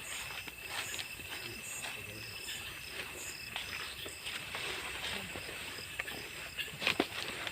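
Night insects chirping: a steady high trill with short, evenly repeated higher chirps over it, and scattered soft knocks, with a sharper click about seven seconds in.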